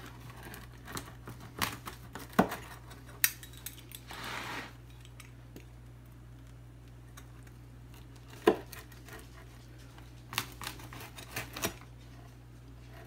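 Metal pizza wheel cutter rolling and pressing through a deep-dish pizza's crust onto a wooden cutting board: scattered clicks and knocks, a short scraping rasp about four seconds in, and a sharp knock about eight and a half seconds in.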